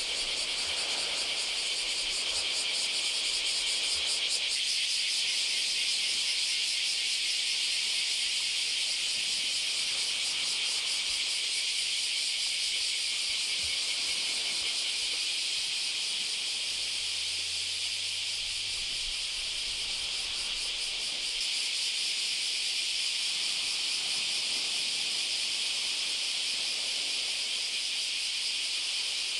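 Dense chorus of insects, a steady high-pitched buzz with a fine rapid pulsing that carries on unbroken.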